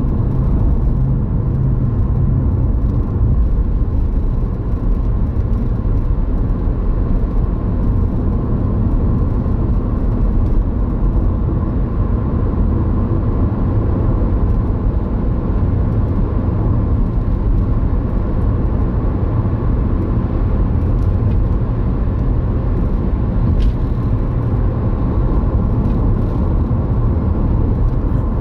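Steady low rumble of a car driving at speed on a country road, tyre and engine noise heard from inside the cabin.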